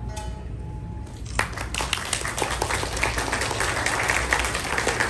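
Audience applause breaks out suddenly about a second and a half in, after a few faint held tones of music, and carries on as steady clapping.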